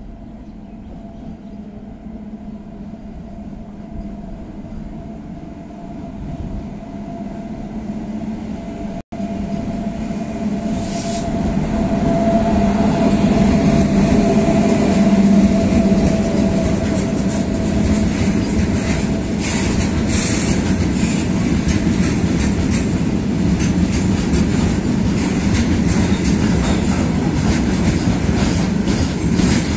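WAG-9 electric locomotive approaching and running through at speed with a freight train of open wagons; the noise grows louder as it nears, then becomes a steady loud rumble of passing wagons with rapid clicking of wheels over the rail joints.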